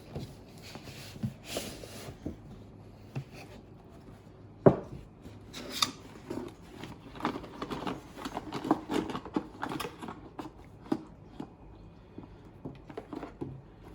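A new hair dryer being picked up and handled: scattered clicks, rustling and light knocks, with one sharp knock about five seconds in.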